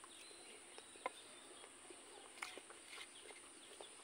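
Faint outdoor ambience: scattered short bird chirps over a steady high insect hum, with a few brief soft clicks.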